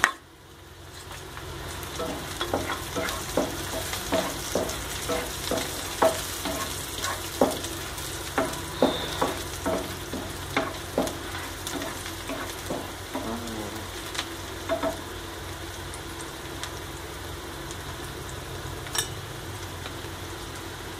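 Chopped shallots and chillies sizzling in oil in a nonstick frying pan while a spatula stirs them, tapping and scraping the pan about twice a second. The stirring stops about three-quarters of the way through, leaving the steady sizzle with one last tap near the end.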